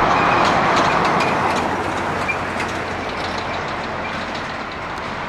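A vehicle passing by: a steady rush of noise, loudest about half a second in, that slowly fades.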